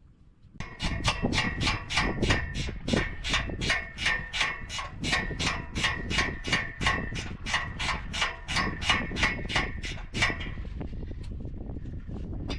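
Hand ratchet wrench worked back and forth quickly, a rhythmic metallic clicking stroke about three to four times a second that stops about ten seconds in, then carries on more faintly.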